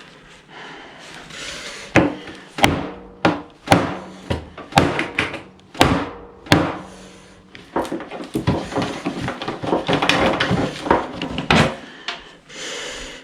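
The tip of a Victorinox Hunter XS pocketknife being stabbed repeatedly into a hard target. First come single sharp knocks about every half second, then a faster, denser flurry of strikes from about eight seconds in to near the end.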